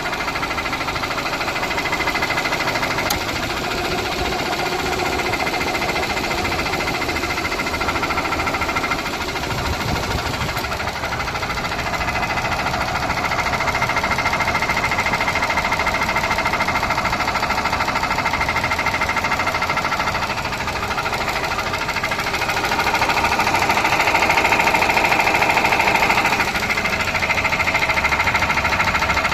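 Car engine running with a rapid knock through it, the knock the owner is filming. The revs rise about halfway through, rise further near the end, then drop back.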